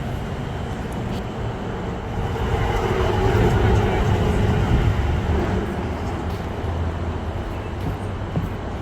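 Road traffic passing, a steady rumble that swells with a passing vehicle about three to four seconds in and then eases back.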